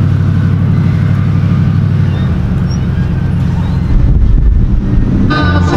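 A pickup truck's engine running loudly as heard inside the cab while driving, a steady low hum whose note drops lower about four seconds in. Music comes in near the end.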